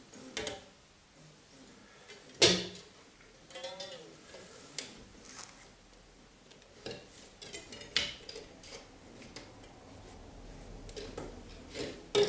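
A cutting wire sawing through the adhesive that holds a car's rear spoiler to the tailgate. Sparse scrapes and squeaks are broken by sharp clicks and knocks, the loudest about two and a half seconds in.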